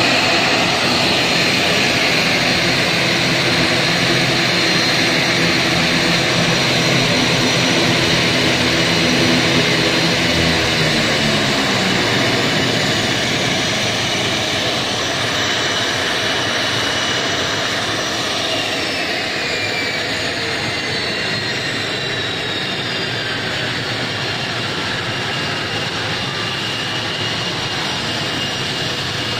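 Twin-engine turboprop airliner's engines running on the apron. The propeller hum falls in pitch and fades about eleven seconds in, and a high turbine whine slides steadily downward later: the engines spooling down as they are shut down.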